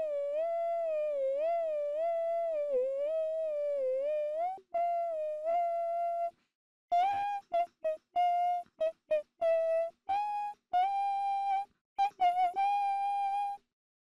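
A person humming a melody. First comes a long wavering, sliding line, then a held note. After a brief silence it turns into a run of short, separate notes, with a couple of longer held notes near the end.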